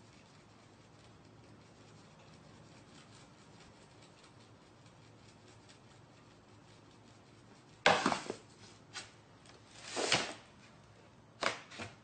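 Faint room hiss, then, about eight seconds in, a sudden scuff followed by a few short swishing rubs, like a mop head dragged across a floor.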